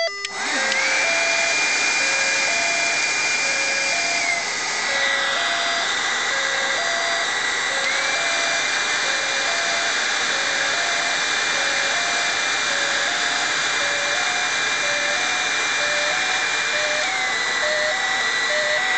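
Heat gun blowing steadily with a high whine that drops and rises in pitch a couple of times. Under it, a VW door-ajar buzzer module repeats its warning as two alternating low tones, each under a second long, drifting slowly higher while it is being melted.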